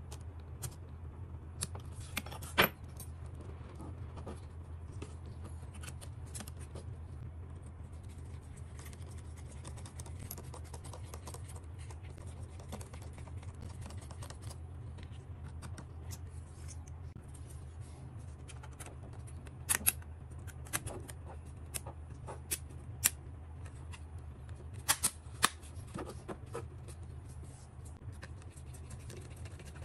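Scattered small, sharp clicks from a precision screwdriver and small screws and parts handled against a drone's plastic body, a few early on and a cluster in the second half, over a steady low hum.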